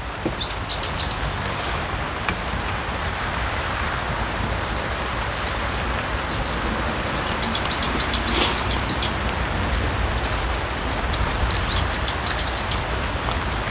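Steady rain falling on a pond's surface, an even hiss. Small birds chirp over it in short quick runs: a few at the start, a longer run about eight seconds in, and more near the end.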